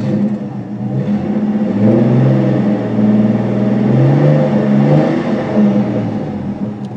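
Six-cylinder car engine revved up from idle about a second in, held at raised revs for several seconds, then dropping back near the end. It is being revved to bring out the random misfire behind code P0300.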